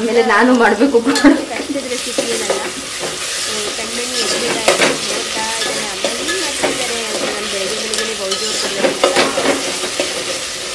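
Chopped onion, tomato and curry leaves sizzling in hot oil in a metal pot, stirred hard with a perforated steel ladle that scrapes and knocks against the pot in repeated strokes. This is the onion-tomato base frying down before the pumpkin goes in.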